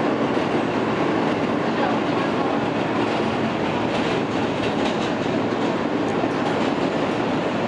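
R160 subway car with Alstom propulsion running at speed on elevated track, heard from inside the car: a steady rumble and hiss of wheels on rail, with faint clicking over rail joints around the middle.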